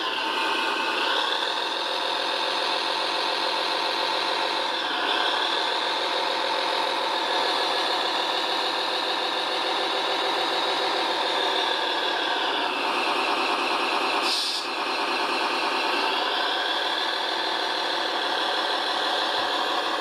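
Radio-controlled model crane and concrete mixer truck running: a steady whine of small motors and gears, its pitch dipping and recovering a few times. There is a short hiss about 14 seconds in.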